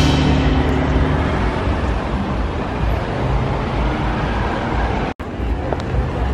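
Street traffic noise, a steady hum of passing vehicles, with the tail of background music fading out in the first second or so. The sound drops out completely for an instant about five seconds in.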